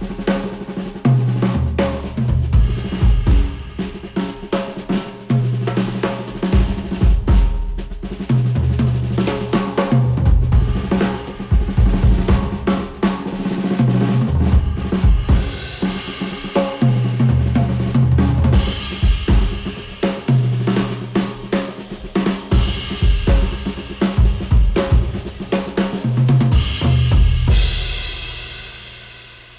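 Drum-heavy instrumental music played back through headphones and picked up by microphones: a kit beat with snare, kick and cymbals over a bass line. Near the end a cymbal wash swells and the track fades out.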